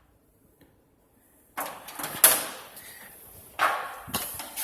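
An HDMI cable being fished through a treadmill's frame. After a moment of quiet come scraping and a few sharp knocks, the loudest about two seconds in.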